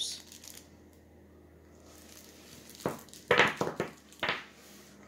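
Small wrapped hotel soaps being put back into a cardboard shoebox: a quick cluster of knocks and rustles about three seconds in.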